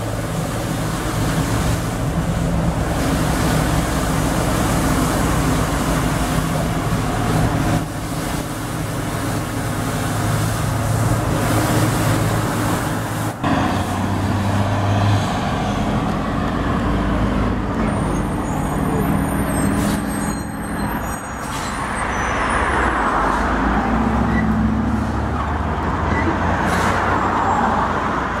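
Heavy diesel trucks hauling belly-dump gravel trailers driving past, engines running steadily under load, with a brief break a little under halfway through.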